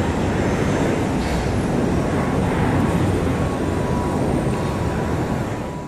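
Cessna Citation Longitude business jet climbing out after takeoff: the steady rumble of its twin turbofans, fading near the end.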